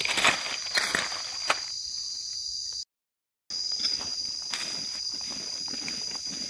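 Insects keep up a steady high-pitched drone while footsteps crunch over dry leaves and gravel in the first second or so. The sound cuts out completely for about half a second near the middle, then resumes with softer rustling of leaves and soil.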